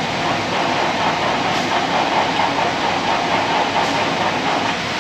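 An old engine running steadily with a fast, rhythmic clatter.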